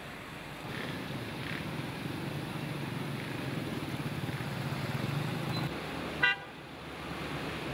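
Vehicles moving through floodwater on a flooded street, a low engine hum under a steady wash of water noise, with one short car horn toot about six seconds in, the loudest sound.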